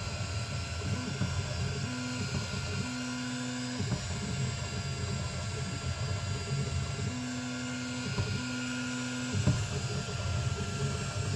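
Diode laser engraver rastering: the gantry's stepper motors run with a low rumble and several times give a steady whine lasting about a second, over a constant hum.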